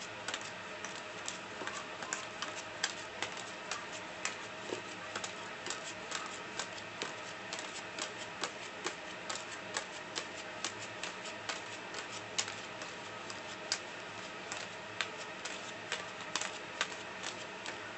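Playing cards dropped one after another onto a loose pile of cards, each landing as a short light click or slap, several a second at an uneven pace.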